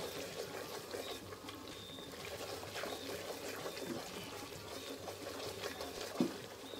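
Wooden spoon stirring a thick, oily tomato stew in an aluminium pot: continuous wet sloshing and squelching, with small knocks of the spoon against the pot.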